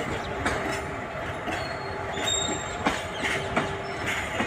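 Container freight train wagons rolling past, their wheels clacking over the rail joints about twice a second, with a steady rumble and a few brief, faint high-pitched wheel squeals.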